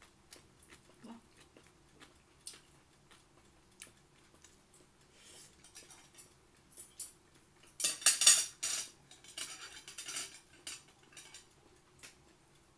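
Eating by hand from a plate close to the microphone: scattered small clicks and taps of fingers and food against the plate, then a louder clatter about eight seconds in, with lighter ones over the next few seconds.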